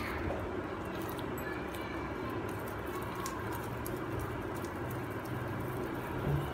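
Hands kneading and pressing fuller's earth (multani mitti) clay in a plastic bowl, faint scattered clicks of the crumbly clay over a steady low hum.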